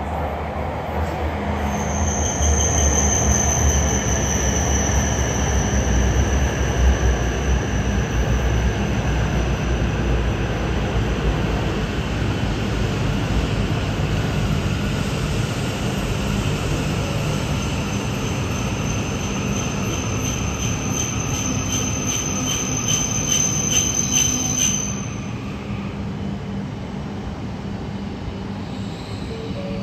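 Tohoku Shinkansen train pulling into the station and braking to a stop: a steady high squeal over the rumble of the running gear, with a whine slowly falling in pitch as it slows. The squeal and rumble stop about five seconds before the end.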